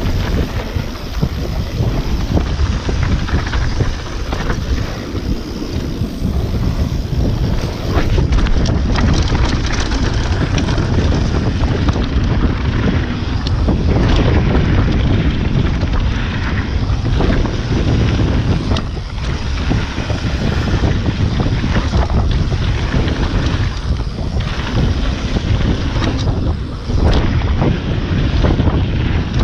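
Wind rushing over an action camera's microphone as a mountain bike descends a dirt and gravel trail at speed, with tyre rumble and frequent short rattles and knocks from the bike over the bumps.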